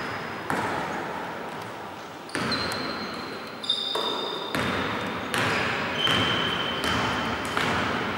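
Basketball bouncing on a hardwood gym floor, a string of irregular knocks, with short high sneaker squeaks from players moving on the court.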